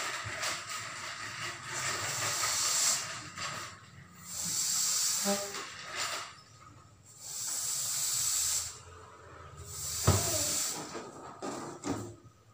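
Air hissing in several separate rushes, each a second or two long, as latex party balloons are blown up by mouth and tied off. A sharp snap comes about ten seconds in.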